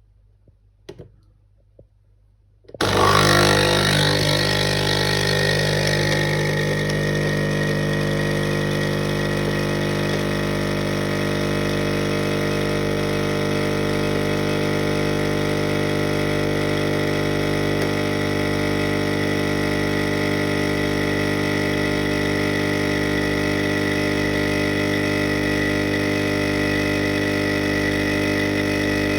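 Nespresso capsule coffee machine brewing: after a couple of faint clicks, its pump starts suddenly about three seconds in with a loud, steady buzzing hum that holds level throughout.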